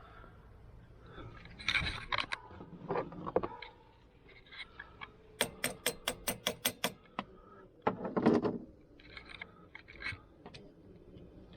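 Hand tools and small metal engine parts clinking and rattling as they are handled, with a quick, even run of about ten sharp clicks in the middle.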